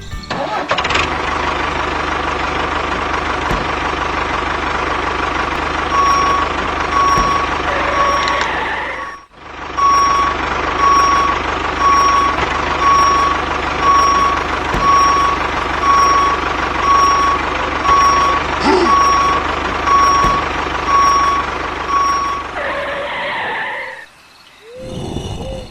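A vehicle engine running steadily with a reversing alarm beeping about once a second. The sound cuts out briefly about nine seconds in and fades away near the end.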